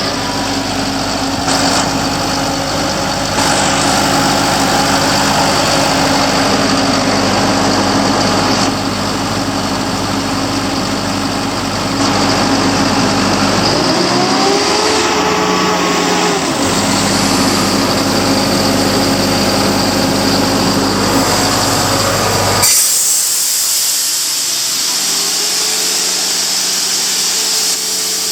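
Atlas Copco XAS400 portable air compressor's diesel engine running steadily just after start-up, its pitch dipping and swinging briefly about halfway through. Near the end the low engine note suddenly drops away, leaving a hiss and a whine that rises in pitch.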